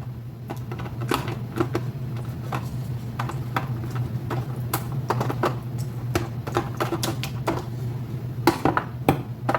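Spoon clicking and scraping against a baking pan in many quick, uneven taps as chunky meat sauce is spooned in and spread, over a steady low hum.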